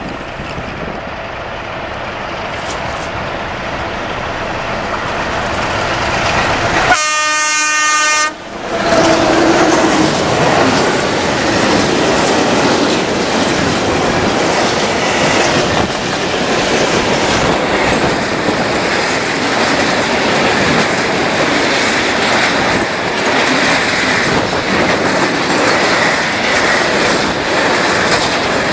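Freight train approaching and passing close by. About seven seconds in, the locomotive gives one horn blast of a little over a second. After that a line of tank wagons rolls past with a steady rumble and the clickety-clack of wheels over rail joints.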